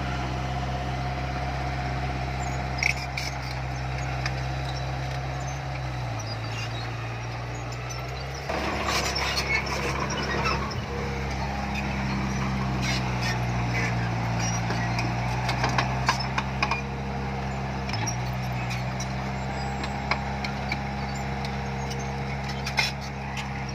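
Heavy diesel engine of earthmoving machinery running under load. Its pitch drops about six seconds in, rises again a couple of seconds later, dips briefly near eighteen seconds and falls right at the end, with scattered metallic clanks and rattles throughout.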